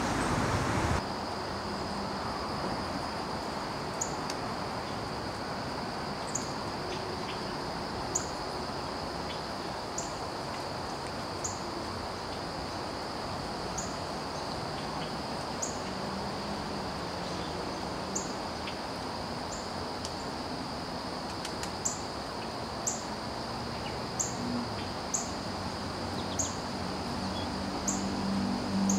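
A steady, high insect trill, with short high chirps repeating every second or two.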